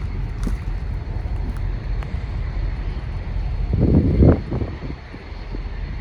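Railroad tie-pickup work train moving along the track: a steady low rumble with scattered knocks, and a louder burst of clatter about four seconds in.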